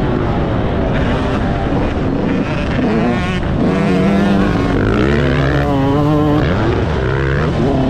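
2022 Yamaha YZ125's two-stroke single-cylinder engine being ridden hard, its note climbing and dropping several times as the rider accelerates and shifts.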